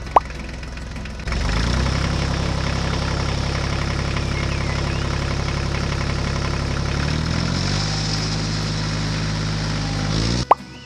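A vehicle engine running steadily, starting about a second in, changing pitch around seven seconds in, then rising briefly and cutting off suddenly near the end. A short pop comes just before the engine starts.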